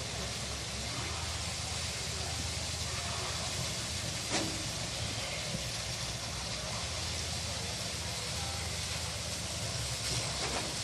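An engine running steadily, a low hum under a constant hiss, with a single sharp knock about four seconds in.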